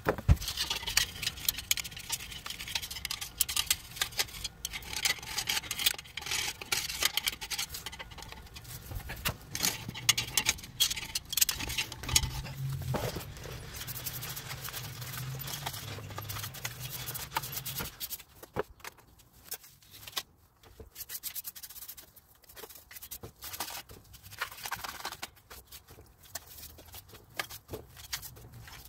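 Small bristle brush scrubbing the steel backing plate and wheel cylinder of a drum brake clean, in quick repeated rubbing strokes over the metal. The scrubbing turns lighter and more broken about two-thirds of the way through.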